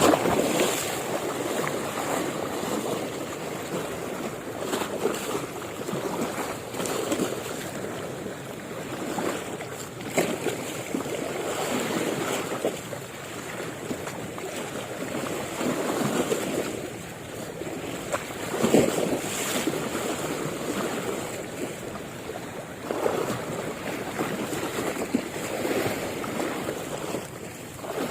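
Sea water lapping and splashing in uneven swells every couple of seconds, with wind buffeting the microphone.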